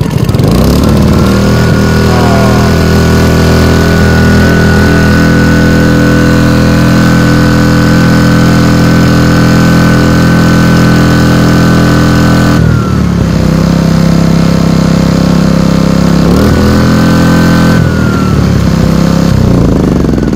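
Yanmar G900is inverter generator's small four-stroke engine pull-started with its new recoil rope. It catches at once and runs steadily at high speed, then drops to a lower speed about two-thirds of the way through, revs up briefly, settles lower again and winds down near the end. It starts and runs properly after the starter rope replacement.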